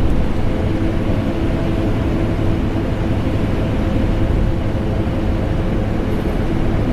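Vacuum cleaner running steadily together with an air conditioner: a continuous whooshing rush with a steady motor hum, unchanging throughout.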